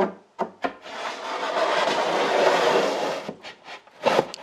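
A wooden cabinet panel being fitted by hand: a few knocks of wood on wood, then a long scraping rub as the panel slides along its joint into place, and two more knocks near the end.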